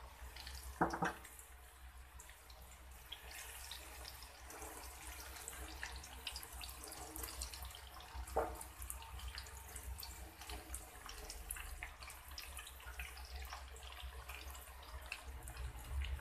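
Food deep-frying in hot oil in a wok, the oil sizzling and crackling with many small pops. Two short clinks, about a second in and again about eight seconds in, fit the metal slotted spoon touching the wok.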